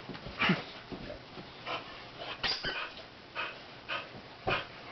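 Dog giving a string of short, excited yips and barks, about one every half second to second.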